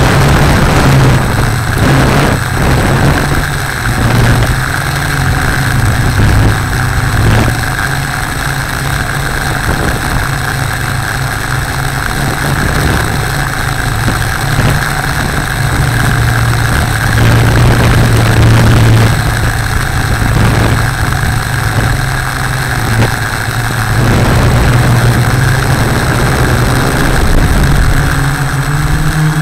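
Six motors and propellers of a Tarot Y550 hexacopter in flight, heard from a camera on the airframe: a steady low hum that wavers slightly in pitch, under a rushing hiss of air.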